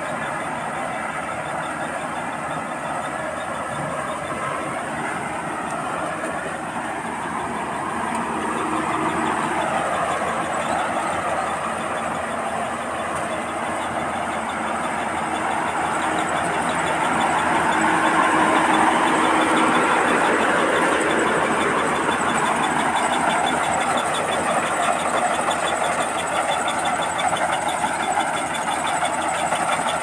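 Rice combine harvester running while it cuts and threshes standing rice: a steady engine and machinery noise that grows louder for a few seconds past the middle.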